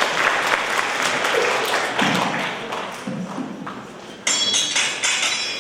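Audience applause dying away, then a sudden high ringing with clinks about four seconds in.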